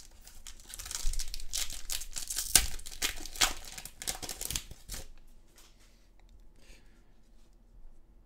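Foil trading-card pack wrapper being torn open. It crinkles and crackles for about four seconds, then stops.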